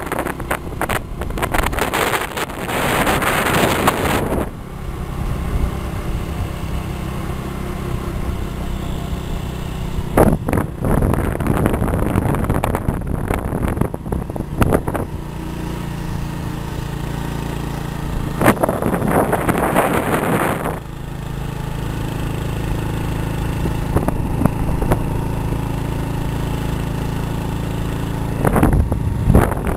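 Moving road vehicle on a winding road: a steady engine and road hum, broken at the start, several times in the middle and near the end by spells of wind rushing over the microphone.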